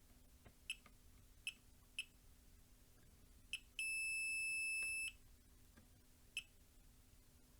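Multimeter beeping: one steady high beep lasting just over a second, a bit past the middle, as the probes meet a diode that conducts both ways, the sign of a shorted diode. Faint clicks of probe tips touching the circuit board come a few times before and after.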